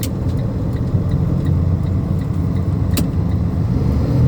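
Freightliner dump truck heard from inside its cab, running with a steady low rumble, with a couple of sharp clicks at the start and about three seconds in.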